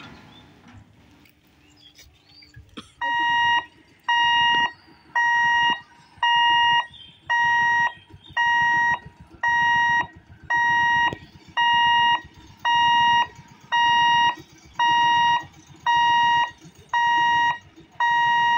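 Level crossing warning hooter sounding a high electronic beep about once a second, each beep about half a second long, starting about three seconds in: the signal that a train is approaching the closed gate.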